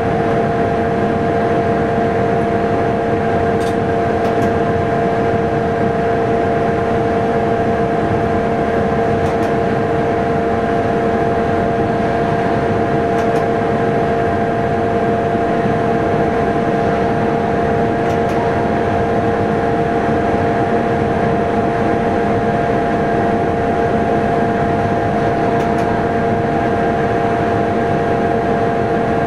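Train in motion, heard from inside the driver's cab: a steady rumble of running gear with a constant whine, and a few faint ticks.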